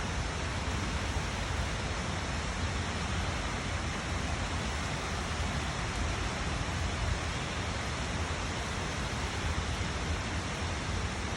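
Steady rainfall, an unbroken hiss with a low rumble underneath.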